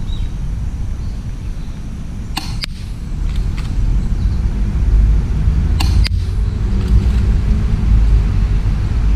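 Two shots from an airsoft Socom Mk23 pistol with a suppressor, about three and a half seconds apart, each a pair of sharp clicks a quarter second apart, the shot and then the BB striking the paper target. Under them runs a steady low rumble.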